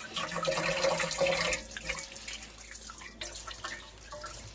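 Hands and forearms being washed in a metal pot of water, water splashing and sloshing; louder for the first second and a half, then lighter splashes.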